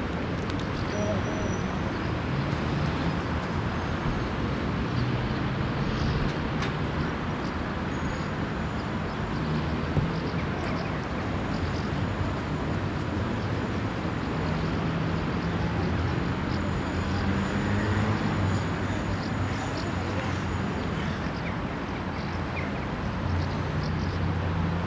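Steady outdoor street ambience of road traffic with a low engine hum, and a single short click about ten seconds in.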